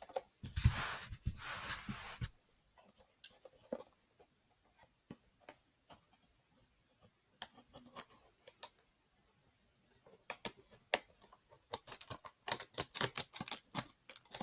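A small cardboard mystery box being handled and worked open by hand. A scraping rustle with soft thumps lasts for a couple of seconds at the start, then there are scattered clicks, and near the end a quick run of sharp clicks and taps.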